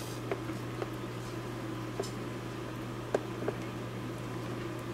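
Steady low hum of a running appliance, with a few faint light clicks scattered through it.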